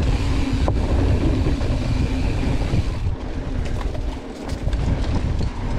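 Wind noise on a GoPro microphone and a mountain bike's tyres rolling over a dirt trail, steady and heavy in the lows, with a few sharp clicks and clatters from the bike.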